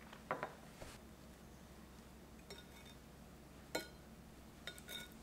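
A few light clinks of ceramic tableware: a small sake cup set down on the counter and chopsticks tapping against a ceramic sashimi plate. The clinks come singly, about two and a half seconds in, just before four seconds and near the end, each with a short ring.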